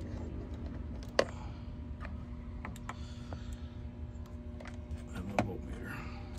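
Scattered small clicks and taps from multimeter test leads and wiring being handled, the sharpest about a second in and another about five seconds in, over a steady low hum.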